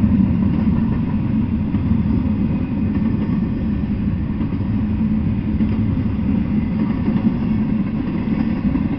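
Double-stack intermodal freight train passing at speed: a steady, unbroken low rumble.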